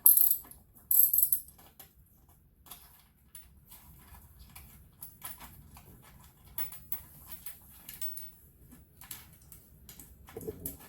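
Two short metallic jangles at the start and about a second in, then scattered light clicks and taps as tools and small parts are handled during the motorcycle teardown.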